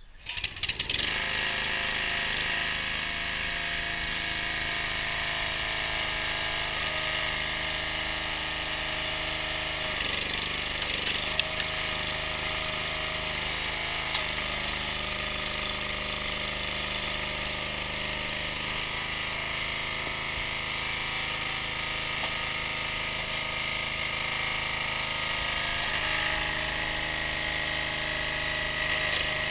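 Briggs & Stratton 6.5 hp petrol engine on a hydraulic log splitter starting suddenly, then running steadily at a constant speed, driving the hydraulic pump; its sound shifts briefly about ten seconds in as the splitter's control lever is worked.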